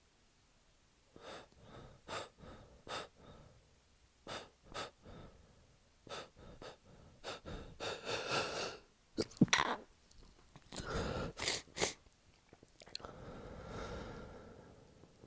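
A man with a head cold sneezing: a run of short, quick breaths building up, then a sharp sneeze about nine seconds in, the loudest sound, followed by more sharp bursts and a long breath out near the end.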